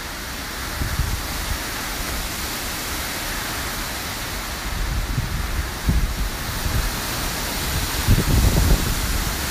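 Hurricane wind and rain: a steady rushing noise, with gusts buffeting the microphone about a second in, around the middle and more strongly near the end.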